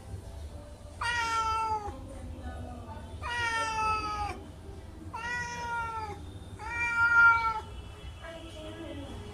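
Domestic cat meowing: four loud meows of about a second each, evenly spaced, each dipping slightly in pitch at the end, then a fainter, lower meow near the end.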